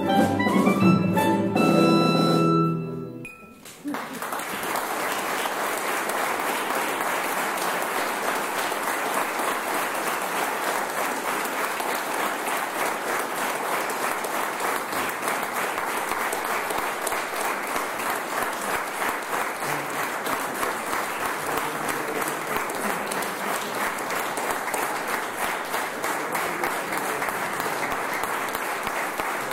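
A live chamber-opera ensemble holds its final chord, which stops about three seconds in. Then the audience applauds steadily.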